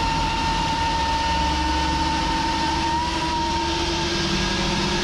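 Big-turbo second-generation Chevy Cruze engine running on a chassis dyno, with a steady high whistle over the engine rumble and rushing air, the whistle wavering slightly about three seconds in. This is the big-turbo 'flute noise', a whistle that comes from the diverter valve opening slightly while the turbo spools.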